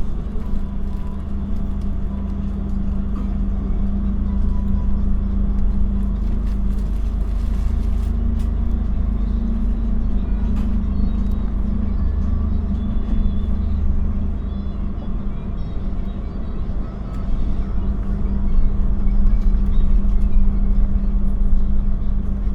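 Madiun Jaya passenger train carriage: a steady low rumble with a constant hum.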